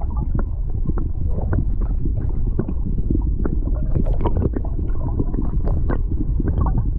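Water heard through a submerged GoPro housing: a steady, muffled low rumble with many scattered clicks and crackles of water moving against the camera.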